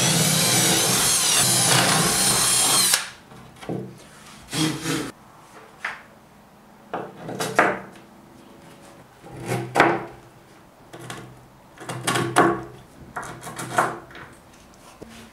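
Cordless drill boring a counterbore into a pine board, running steadily for about three seconds and then stopping. Then come several short knocks and rubs as round-headed bolts are pushed into the holes by hand.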